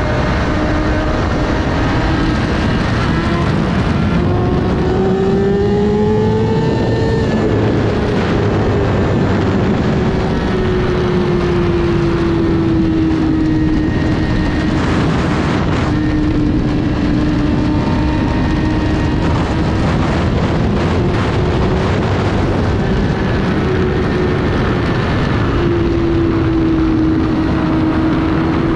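Sport motorcycle engine pulling through the bends, its note rising and falling again and again as the throttle opens and closes, under heavy wind rush on the microphone.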